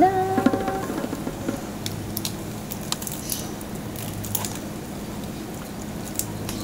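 A short rising hum of a voice at the start, then scattered sharp crackles as the crispy skin of a deep-fried pork knuckle is torn apart by hand.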